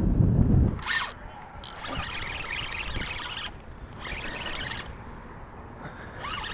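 Spinning reel being cranked in short spells, a rasping mechanical whir, as line is wound in. Wind buffets the microphone in the first second.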